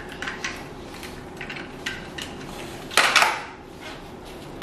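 Plastic toy car and racetrack pieces clicking and knocking as they are handled, with a louder rattling clatter about three seconds in.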